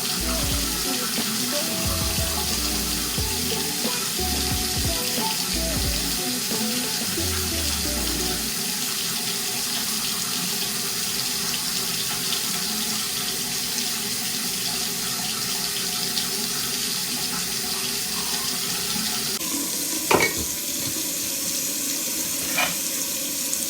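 Tap water running steadily into a sink, with two sharp knocks near the end. Background music plays under it for the first several seconds.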